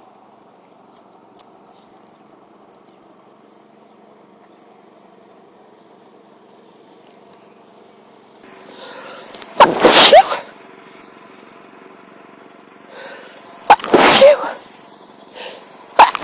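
A woman sneezing in a fit: after a quiet stretch, a building in-breath, then a loud sneeze about ten seconds in, a second about four seconds later, and a third starting at the very end. The uploader puts the fit down to her cold, or possibly a mild tree-pollen allergy.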